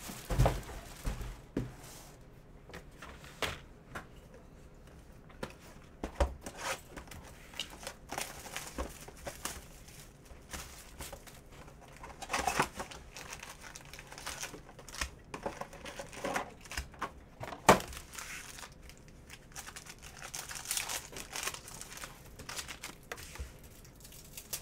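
Crinkling and tearing of wrapping as a sealed Panini Mosaic basketball hobby box and its card packs are ripped open by hand, with irregular clicks and taps of cardboard and cards being handled. The loudest single click comes about two-thirds of the way through.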